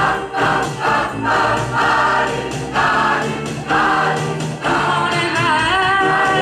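Large mixed choir and solo singer singing a rock song, in short rhythmic phrases, then gliding up into a long held note with vibrato about five seconds in.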